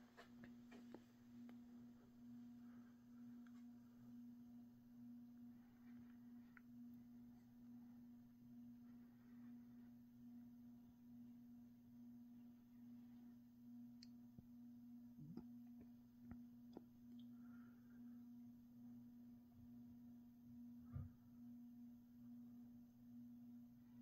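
Emerson KB55 ceiling fan motor running at medium-low speed, giving off a faint steady electrical hum: a single low tone with a slight regular pulsing. The hum is a general characteristic of these motors. A couple of faint ticks come partway through.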